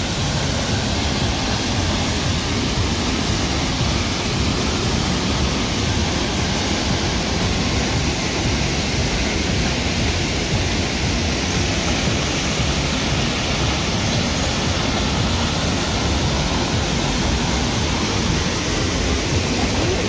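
Waterfalls pouring into a rock pool, a steady, loud rush of falling water.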